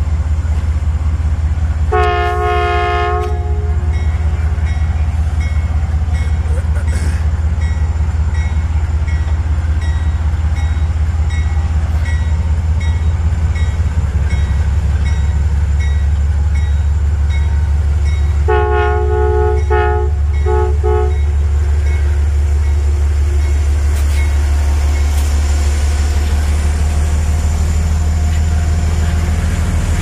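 Amtrak GE Genesis diesel locomotive approaching with a steady low engine rumble. Its air horn sounds one long chord a couple of seconds in, and again past halfway as a long blast followed by two short toots. A bell dings steadily between the blasts.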